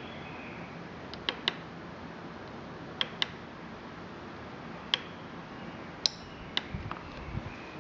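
Small tactile push-buttons on a relay timer module's circuit board being pressed, a series of sharp little clicks, some in quick pairs, with a few soft low knocks near the end.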